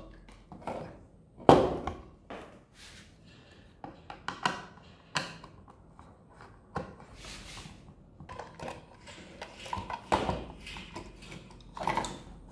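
Handling sounds of a car power inverter being taken apart: scattered taps, knocks and short scrapes as its casing and parts are moved, with the sharpest knock about one and a half seconds in.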